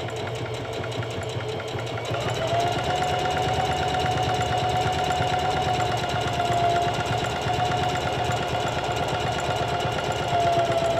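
SINGER CP6350M sewing machine stitching a wide multi-step zigzag through fabric: a steady motor whine over a rapid, even clatter of needle strokes, picking up speed about two seconds in.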